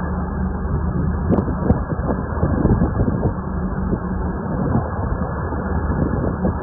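A boat's engine running steadily, with wind buffeting the microphone.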